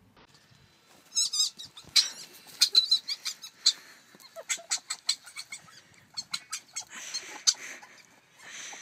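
A quick series of short, high-pitched squeaks and chirps from a small young animal, starting about a second in with a wavering call.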